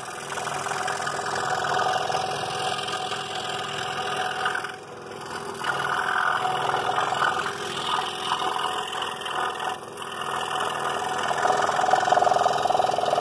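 Scroll saw running with its blade cutting through a small wooden workpiece, a steady mechanical buzz that swells and eases as the piece is fed and turned, with brief lulls about five and ten seconds in.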